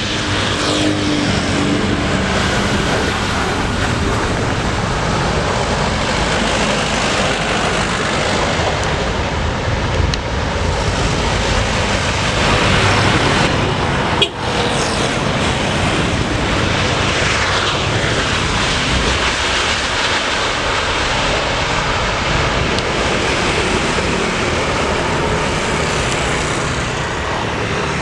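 Jet airliner engines on landing, loud and steady. About halfway a sudden cut switches from a Boeing 737-500 to a Boeing 787-9 Dreamliner, whose engine whine falls in pitch as it passes.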